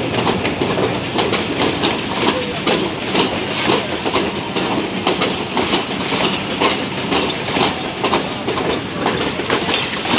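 Pakistan Railways passenger coaches rolling past, wheels clattering over rail joints and points in a steady run of irregular clacks over a continuous rumble.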